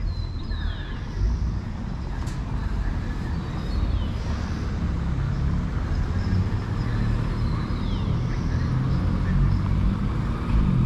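Road traffic: motor vehicles running in a steady low rumble, with a short high falling chirp about every four seconds.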